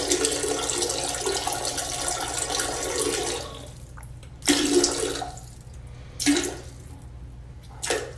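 Toilet flushing: water rushes loudly through the bowl for about three and a half seconds. Three shorter surges of water follow, about a second and a half apart.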